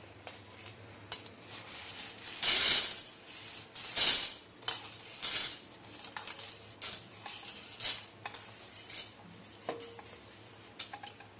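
Dry chana dal grains being pushed and scooped by hand across a steel plate, rattling and sliding on the metal in irregular short bursts, the loudest about two and a half and four seconds in, with smaller ones after.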